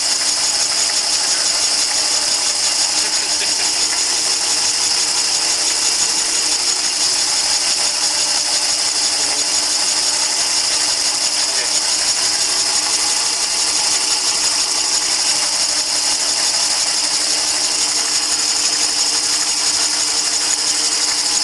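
Cylinder boring bar running steadily, its cutter taking a light, hit-or-miss cut in a two-stroke cylinder bore. A continuous high-pitched mechanical whir with a fine rapid ticking: the tool is only just starting to cut on one side, because the worn bore is not yet trued up.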